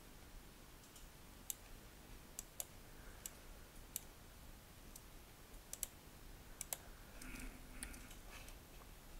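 Faint, scattered clicks of a computer mouse and keyboard, about a dozen at irregular intervals, some in quick pairs, over a low room hiss.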